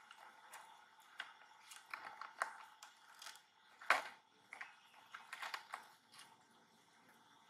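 Fruit peel being torn and picked apart by a macaque's hands: an irregular run of small crackles and clicks, the sharpest about four seconds in, dying away near the end.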